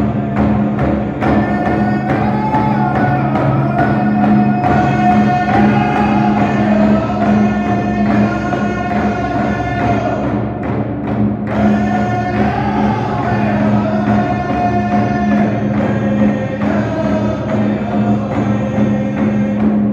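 Indigenous drum group performing: a large drum struck in a steady, even beat while several voices sing a high-pitched song over it in two long phrases, with a short break about halfway.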